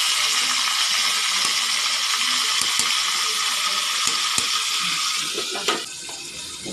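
Boneless milkfish frying in hot oil in a wok, a steady sizzle with a few light taps of the spatula as oil is spooned over the fish. Near the end a metal lid clanks onto the pan and the sizzle drops and turns muffled.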